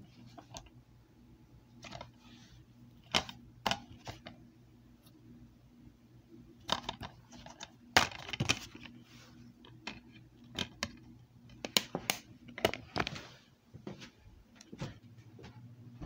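Plastic DVD case being handled: a string of sharp clicks and snaps, the loudest about halfway through and a quick cluster a few seconds later, over a steady low hum.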